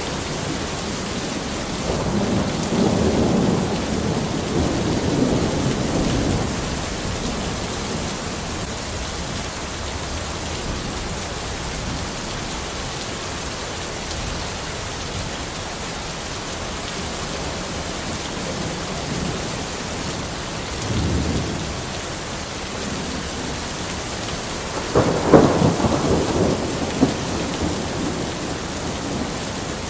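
Steady rain falling, with rolls of thunder: a long low rumble a few seconds in and a sharper, louder clap about 25 seconds in.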